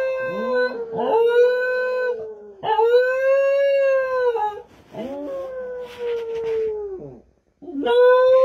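A husky howls in a run of long, drawn-out notes, each about two seconds, with short breaks for breath. Near the end, after a brief pause, a small old tan dog takes up a howl of its own.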